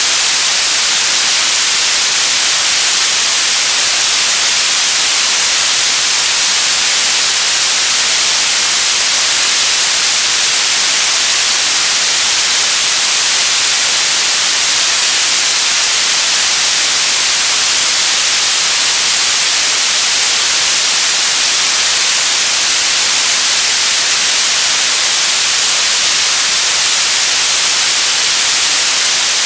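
Radio static: a steady, loud hiss of noise, brightest in the high frequencies, with no tones or breaks.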